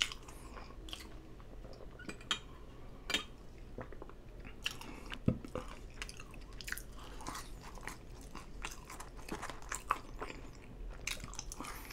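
A person chewing food quietly, close to the microphone, with many short wet mouth clicks and smacks at irregular intervals; the food is White Castle crinkle-cut fries.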